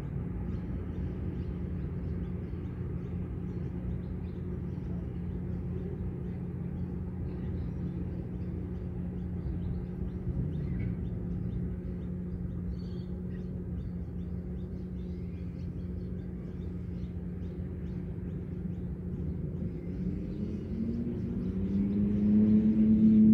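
Ambient background music: a steady low drone, with a louder ringing tone swelling in near the end.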